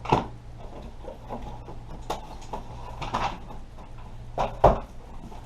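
Handling noise from unboxed airsoft gear: a few separate knocks and clacks, the loudest near the start and about four and a half seconds in, over a low steady hum.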